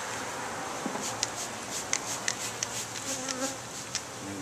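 Italian honey bees buzzing in flight around a top-bar hive opened for inspection. Under the steady hum, about a dozen short sharp ticks come between about one and four seconds in.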